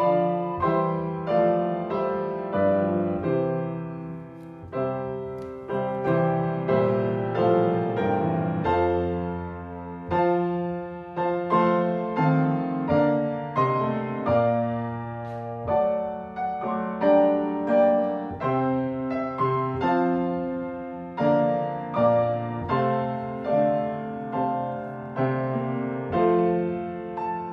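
Piano playing a slow piece in chords, each struck note fading before the next.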